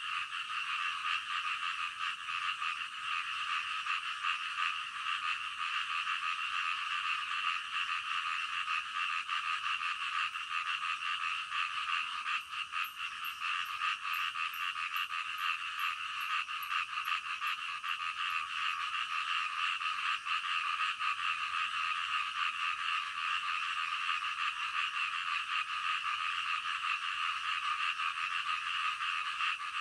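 A dense chorus of many frogs calling together, steady and unbroken throughout. About halfway through there is a faint run of quick high ticks that lasts several seconds.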